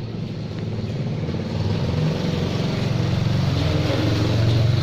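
A motor vehicle engine running steadily and growing louder, as if drawing closer or speeding up.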